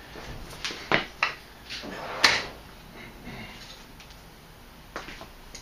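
A run of sharp knocks and clatters of metal hand tools being sorted through, as if in a drawer, the loudest a little over two seconds in, while a 3/8 wrench is fetched.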